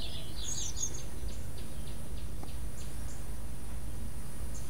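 Small birds chirping in the background, several short high chirps in the first second and fainter ones after, over a steady low hum.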